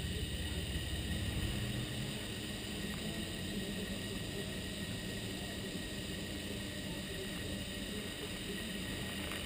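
HoverThings FPV quadcopter's NTM 28-26 1200 kV brushless motors and propellers humming steadily in flight.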